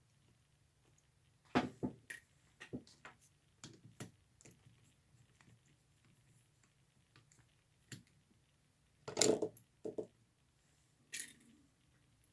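Scattered small metal clicks and clinks of hand tools working the side rods off a Lionel 221 model locomotive's drive wheels, the loudest cluster about nine seconds in.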